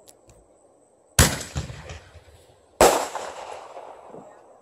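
Two loud firework explosions about one and a half seconds apart, each a sharp bang that dies away over about a second.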